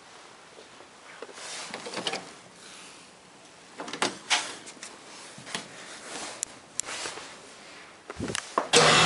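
Door and handling noises, with scattered clicks, knocks and short rustles as a door is worked in a small room. Near the end a much louder steady hum with a low drone cuts in suddenly.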